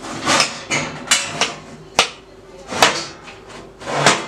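A run of sharp knocks and clattering, about eight in all at uneven intervals, from kitchen objects being handled.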